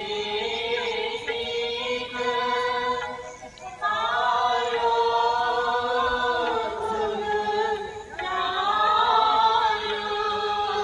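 Singing music: voices hold long, drawn-out notes in three phrases, with short breaks about four and eight seconds in.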